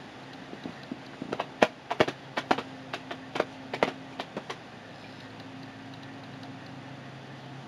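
Desktop computer's fans running with a steady low hum while it reboots. About fifteen sharp, irregularly spaced clicks come in the first half, then stop.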